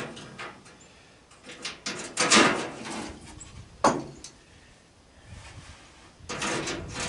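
Metal clanking and scraping from hand work on an AC condenser unit's sheet-metal casing and parts: a few separate scrapes and knocks, with a sharp knock about four seconds in and a longer scrape near the end.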